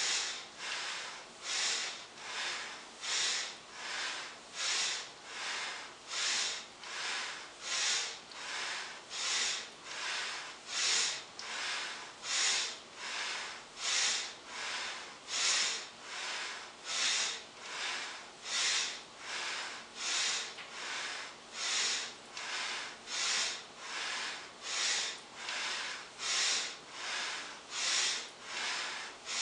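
A person breathing hard and rhythmically through the nose while doing continuous deep squats, one breath in on the way down and out on the way up. The breaths come as sharp hissing puffs, alternating louder and softer, about one every 0.8 seconds.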